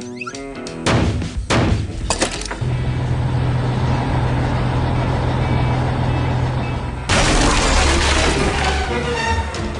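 Cartoon sound effects over music: several sharp crashing impacts about a second in, then a steady low rumble, then a louder noisy stretch about seven seconds in before the music returns.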